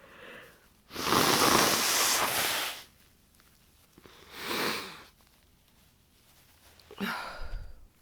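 A congested nose from a head cold blown hard into a tissue for about two seconds, followed a few seconds later by a shorter sniffle. Near the end comes a brief breathy sound with a little voice in it.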